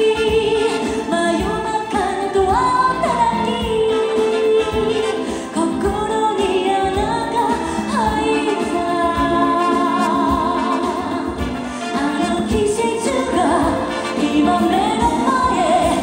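A woman singing a pop song live into a handheld microphone over instrumental backing, holding long sung notes.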